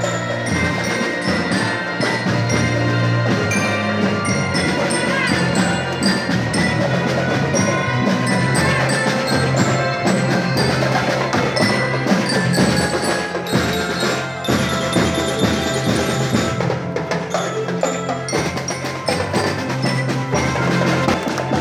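Music with a steady percussive beat under layered pitched tones.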